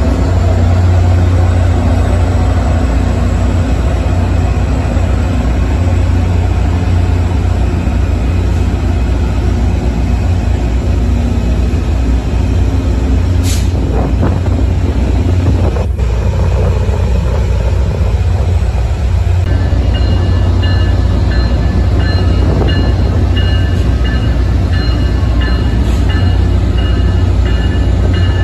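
MBTA Commuter Rail diesel locomotives running with a loud, steady low rumble. About two-thirds of the way in, a locomotive bell starts ringing over and over.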